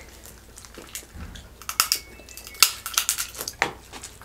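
Seafood-boil shells being cracked and peeled by hand at the table: a run of sharp cracks and clicks, densest in the middle, the loudest about two and a half seconds in.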